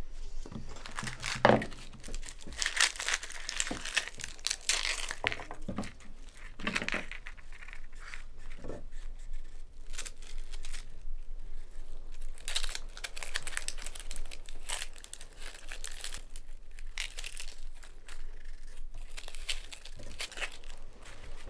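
Irregular rustling and crinkling, with many scattered sharp clicks and taps, like something being handled and torn.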